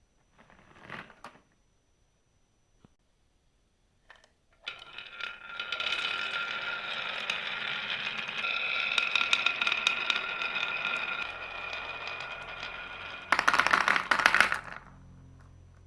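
Marbles rolling and clattering down a marble run: a short clatter about a second in, then from about five seconds a dense, continuous rattle with a ringing tone, rising to a louder clatter near the end before it stops.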